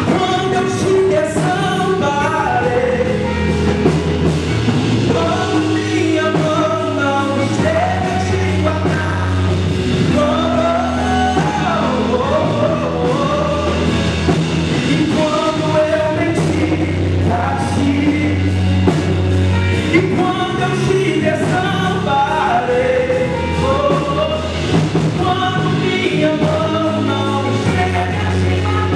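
A man singing a gospel song into a microphone over instrumental accompaniment with a steady, strong bass.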